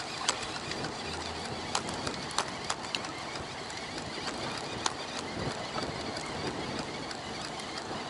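Steady rushing wind and water noise aboard a fishing boat at sea, with a few sharp clicks and knocks scattered through it.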